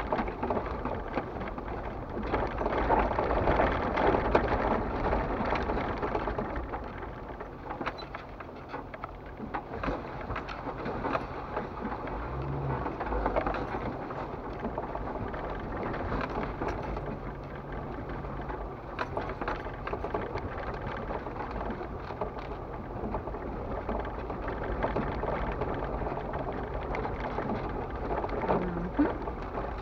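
Jeep Wrangler TJ crawling along a gravel and dry-leaf dirt trail, heard from inside the cab: the engine runs low under a steady crunch and rattle of the tyres over stones and leaves, with scattered knocks, a little louder in the first few seconds.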